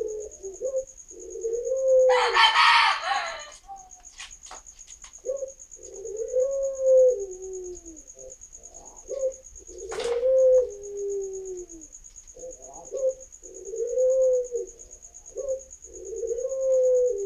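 Young puter pelung (Barbary) doves about five months old cooing over and over: low coos that rise and fall, a couple of seconds apart, from juveniles still learning their call. A steady high insect trill runs underneath, with a brief noisy rustle about two seconds in and a sharp click near ten seconds.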